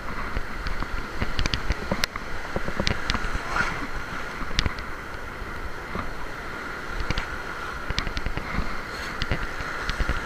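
Surf washing in over the rocks with wind on the microphone, and the whir and scattered clicks of a spinning reel being cranked to bring in a fish.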